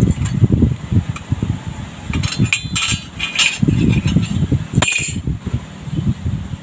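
Light metal clinks of steel washers and a stainless steel tube being handled on concrete: a cluster of clinks from about two to three and a half seconds in and another near five seconds, over an uneven low rumble.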